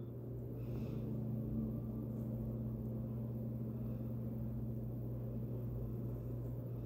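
A steady low hum, with a fainter second tone just above it that fades out about five seconds in.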